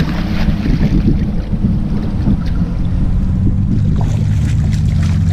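GMC Sierra pickup driving on the road: a steady low engine hum with rushing wind and road noise, the engine note stepping a little lower about two to three seconds in.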